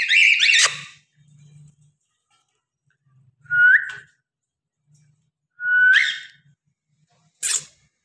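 Cockatiels calling: three short whistled calls, each sweeping quickly upward with a slightly rough edge, one right at the start, one about three and a half seconds in and one about six seconds in. A brief harsh burst follows near the end.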